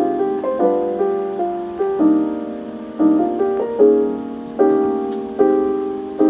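Background music: a soft piano playing sustained chords, a new chord struck about every second and left to ring out.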